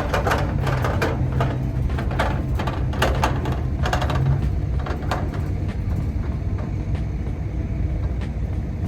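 Truck engine running steadily, with a string of clanks and rattles over the first five seconds or so.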